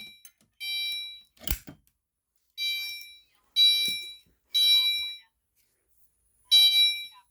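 Fire alarm speaker set to chime, sounding a bright electronic chime note about once a second, each note fading away, with a short pause near the end. A sharp knock is heard about a second and a half in.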